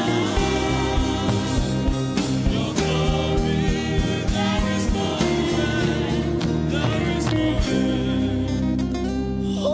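Gospel worship music: sustained chords over a steady low beat, with wordless singing or vocal runs above.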